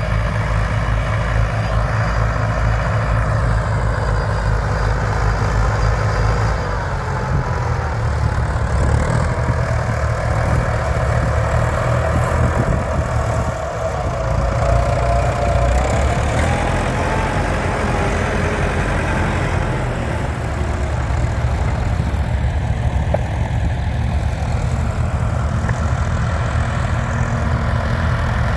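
Vintage Fordson-based diesel tractor engine running steadily with a low, even beat, its note shifting slightly about seven seconds in.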